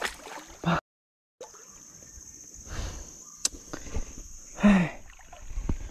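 A steady high insect drone from the riverside forest, with scattered clicks and knocks of rod-and-reel handling and a brief low voice sound about two-thirds of the way through. The audio cuts out completely for about half a second near the start.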